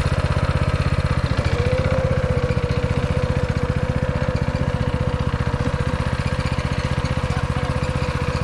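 Small gasoline engine running steadily at an even speed, a fast regular pulse with a steady whine that comes in about two seconds in.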